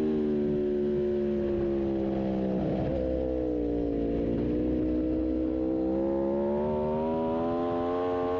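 Aprilia RSV4 1100 Factory's V4 engine on a race track. Its pitch falls for about four seconds as the bike slows, then climbs steadily as it accelerates hard again.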